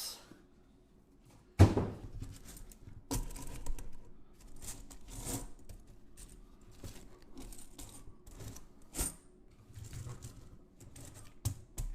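Unboxing handling noise from a shipping box and cloth bags of silver coins: a sharp thud about one and a half seconds in, then irregular rustling, crinkling and small knocks.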